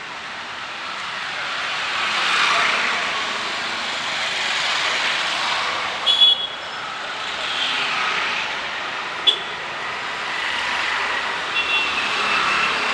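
Road traffic on a rain-wet street: vehicles pass with a tyre hiss that swells and fades, and short beeps sound about six seconds in and again near the end.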